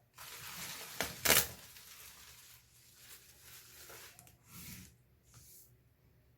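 Packaging being handled and unwrapped: rustling and crinkling, with a sharp loud crackle about a second in and softer swishes after it.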